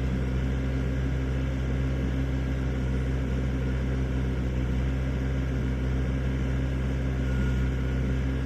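Excavator's diesel engine running at a steady speed, a constant low hum with no change in pitch or load.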